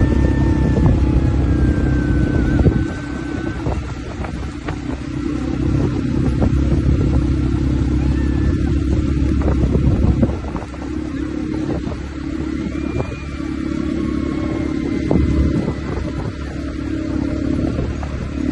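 Quad bike engines running as the quads ride along a dirt track, a dense low rumble that gets quieter about three seconds in and again about ten seconds in.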